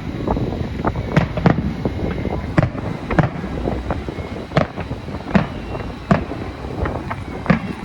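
Fireworks going off all around: many sharp bangs and cracks at irregular intervals, a few each second, over a continuous low rumble of distant bursts.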